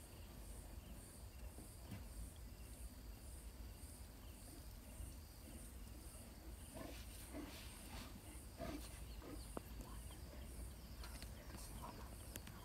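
Faint wet licking and chewing clicks from a young lion grooming its paw, scattered through the second half, over a low steady rumble.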